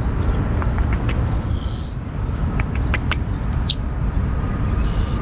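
Red-winged blackbird calling: a scatter of short, sharp notes and one loud buzzy call falling in pitch about a second and a half in, over a steady low rumble.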